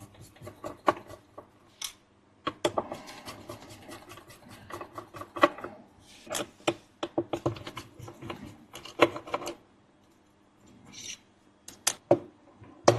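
Small hand tools clicking, ticking and scraping against the opened hard drive's metal parts while its read/write head stack is worked loose; the head assembly is stuck tight. The handling noise comes in irregular bunches, with a short pause about ten seconds in.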